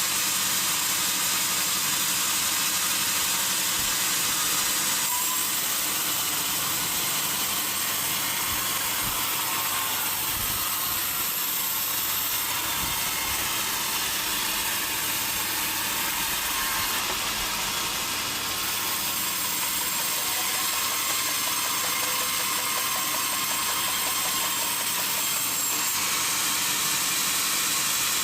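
Sawmill saw running through a large teak log: a steady, continuous hissing machine noise that stays level throughout.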